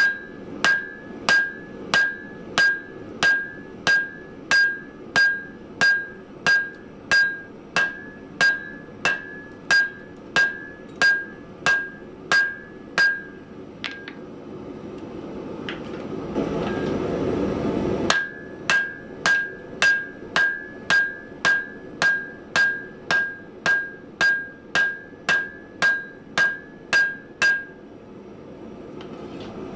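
Hand hammer blows on hot spring steel over an anvil, about two a second, each with a clear ringing tone, as the steel is drawn out for a vise spring. The hammering breaks off for about four seconds in the middle while a steady rushing noise rises, then resumes and stops again shortly before the end.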